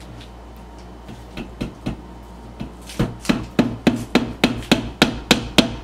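Small hammer tapping a tack nail through the thin back panel of a cube organizer into its wooden edge. A few light taps come first, then from about three seconds in a steady run of sharp taps, about four a second.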